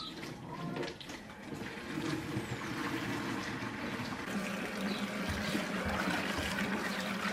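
Tap water running and splashing into a plastic bowl in a stainless steel sink as fresh greens are rinsed and rubbed by hand. A steady low hum joins the running water about four seconds in.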